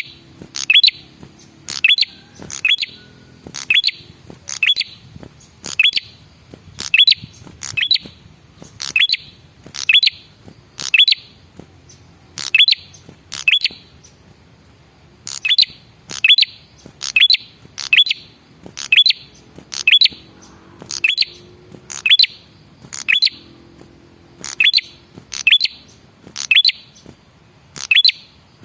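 Male prenjak kepala merah calling: sharp, high chirps, mostly in quick pairs, repeated about once a second, with a short pause about halfway through.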